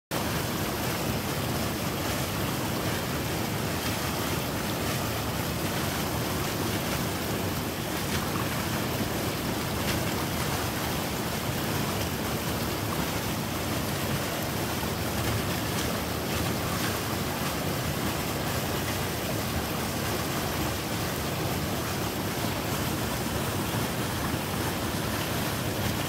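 Small two-tier waterfall on a mountain stream, water cascading over rock in a steady, unbroken rush.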